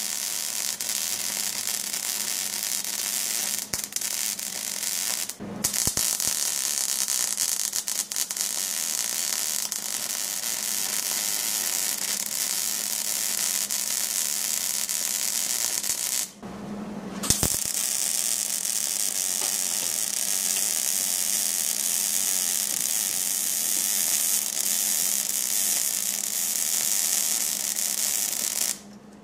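MIG welder running a bead of steel onto a transmission pan: a steady crackling, sizzling arc, broken by a brief stop about five seconds in and a pause of about a second midway, and stopping just before the end. A low steady hum shows through in the pauses.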